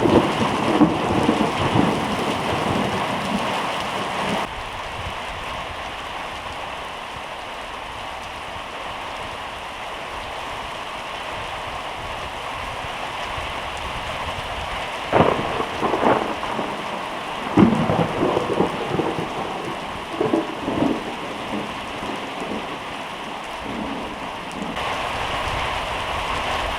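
Steady rain with thunder: a loud rumble at the start, then after a stretch of rain alone a run of sharp thunder cracks and rumbles a little past halfway.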